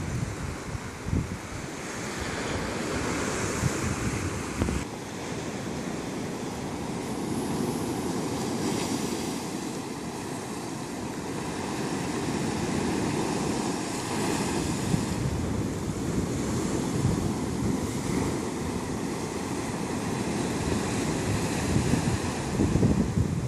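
Ocean surf breaking against rocks and washing up a sandy shore, a steady rush that swells near the end, with wind gusting on the microphone.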